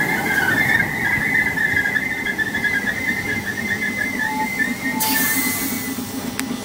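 London Overground Class 317 electric multiple unit braking along the platform, its brakes squealing with a wavering high whistle. There is a brief hiss about five seconds in. Strong wind rumbles on the microphone.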